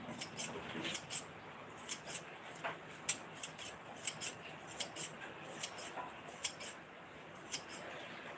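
Scissors snipping repeatedly, one sharp double click about every half to one second, cutting small pieces by hand. The snips thin out near the end.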